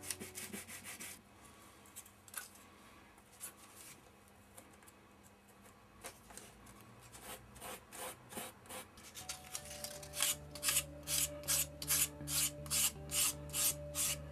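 Sandpaper rubbing by hand on a balsa wood wing frame, in back-and-forth strokes. The strokes are sparse at first, then settle into a steady rhythm of about two to three a second in the second half.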